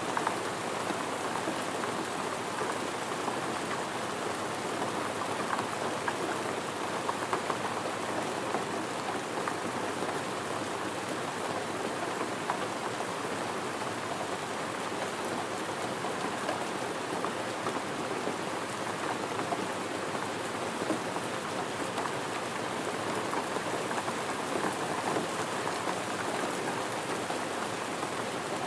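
Steady rain pattering on surfaces, with many small drop impacts.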